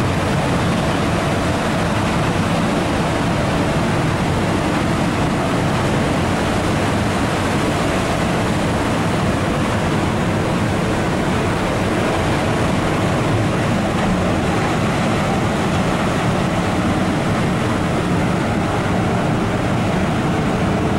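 Steady rushing noise with a faint underlying hum, unchanging throughout: wind and machinery noise on the open deck of a moving cruise ship.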